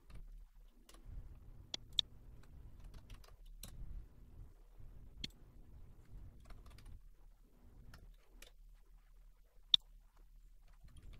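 Scattered computer mouse clicks and keyboard keystrokes from working in a CAD program, faint, with a few sharper clicks, the loudest near the end. A faint low rumble comes and goes underneath.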